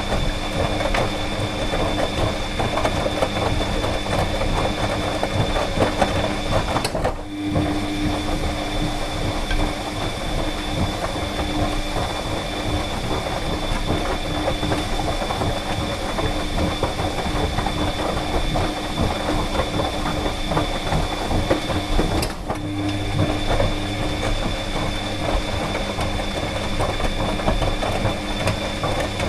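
Clothes dryer running: a steady mechanical hum with a constant whine and a fast rattling clatter from the turning drum. The sound dips briefly twice, about a quarter of the way in and again near three quarters.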